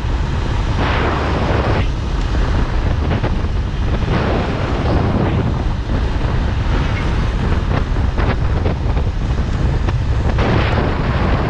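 Motorcycle riding at speed: wind buffets the microphone in gusts over a steady low rumble of engine and road noise.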